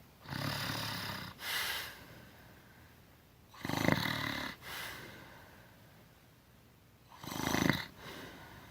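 A woman snoring with her mouth open: three snores about three and a half seconds apart, each a longer rattling sound followed by a shorter, breathier one.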